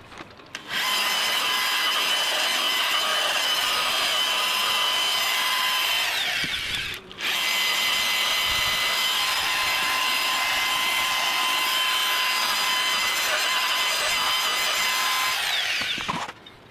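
Electric dual-action polisher with a light cutting pad buffing compound into fibreglass gelcoat: a steady high-pitched whine. About six seconds in it winds down and stops for under a second, then spins back up. It winds down and stops near the end.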